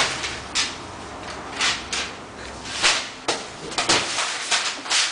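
Sheets of paper being shuffled and flapped against a desk: a string of irregular short rustling swishes.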